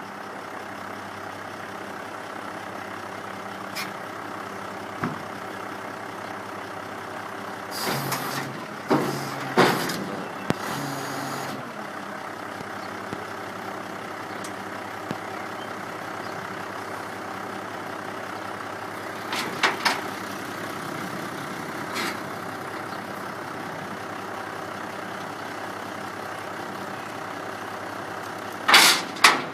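A vehicle engine idling steadily, with several brief louder noises coming and going over it.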